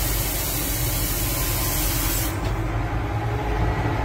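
Cabin noise of a slowly moving car: a low engine and road rumble under a steady hiss of air, and the hiss cuts off suddenly a little past halfway through.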